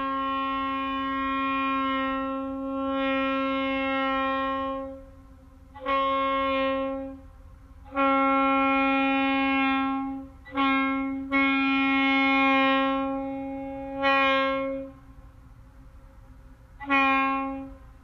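Single-bell locomotive air horn, the Conrail RS25, blowing one steady note in about seven blasts: a long one of about five seconds at the start, then shorter ones from under a second to nearly three seconds, each starting sharply.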